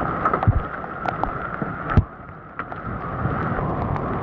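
Large hailstones pelting down, with scattered sharp impacts as stones hit the ground and nearby metal, over a steady rush of wind on the microphone.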